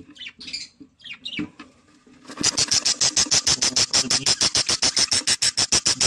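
Budgerigar in an opened nest box chattering: a few scattered high chirps, then from about two seconds in a loud, fast, even run of chirps, about ten a second.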